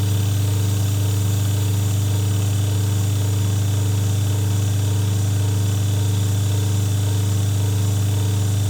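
Wash motor of an old twin-tub washing machine running with a loud, steady electric hum.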